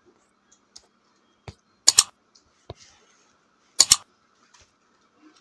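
Mouse-click sound effects from a like-and-subscribe overlay animation: a sharp double click about two seconds in and another about two seconds later, with a few faint ticks between.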